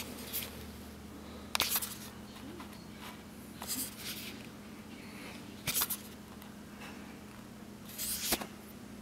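Four short, hissy breaths about two seconds apart, over a steady low hum.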